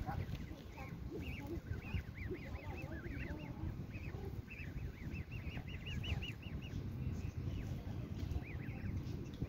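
Canada goose goslings peeping: many short, high chirps coming in quick runs, with a few softer, lower calls among them over a low rumble.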